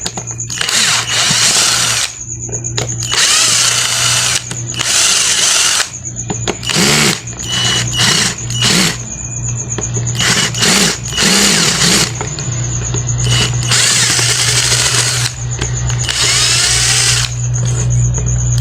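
Electric drill used as a screwdriver, run in short bursts of a second or two again and again, each one spinning up and stopping, as it backs out the screws of a drill housing. A steady low hum runs underneath.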